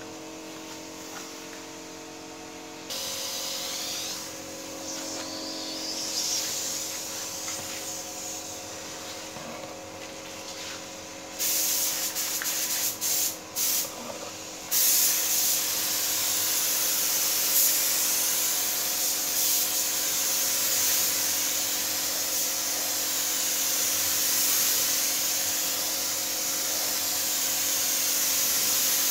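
Compressed-air paint spray gun spraying paint, a steady high hiss. About halfway through it comes in a few short bursts as the trigger is pulled and released, then sprays without a break, over a steady background hum.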